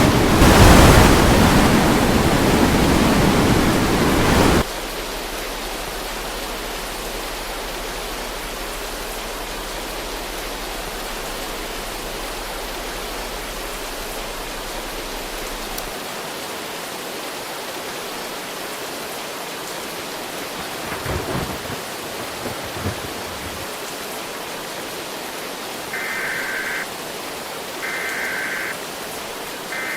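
Loud storm noise of wind and rain that cuts off abruptly about four and a half seconds in, leaving a steady, quieter rushing hiss. Near the end come three short beeps about two seconds apart.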